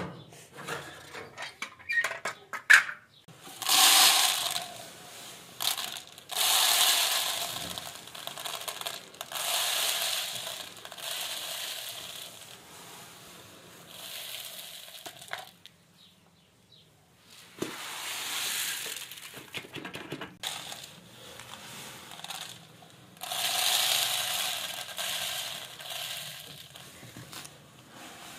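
Wheat grain pouring from the hatch at the base of a metal grain bin into a plastic plate, as a dry rushing hiss in several separate runs with pauses between. A few metal clicks and knocks from the bin's hasp and sliding hatch come in the first seconds.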